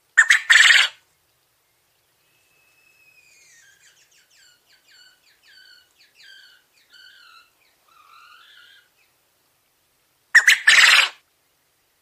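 Coturnix (Japanese) quail crowing twice, about ten seconds apart. Each crow is a loud, short burst of a quick note and then a slightly longer one. Between the two crows comes a faint run of quick, repeated falling chirps.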